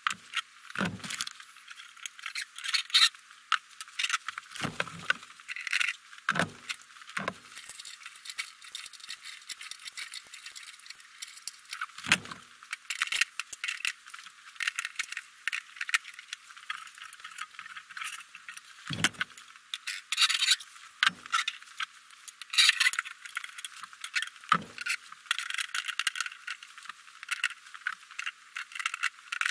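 Hands working a bulk candy vending machine: a steady run of clicks, rattles and metallic jingling as the clear plastic candy canisters are taken off and handled, with several dull knocks scattered through.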